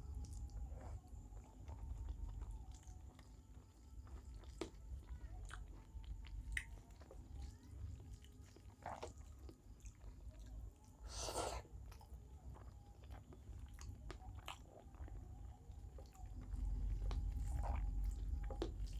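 Close-miked eating: a person chewing mouthfuls of rice and small-fish curry, with scattered small wet clicks. About eleven seconds in there is one louder, longer noisy sound.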